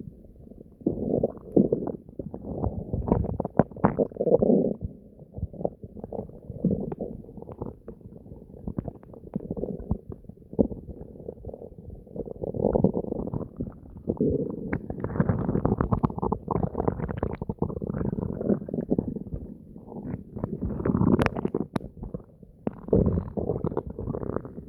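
Stomach gurgling and deep growling, going on without a break in irregular waves that swell louder and fade, with a couple of short sharp clicks near the end.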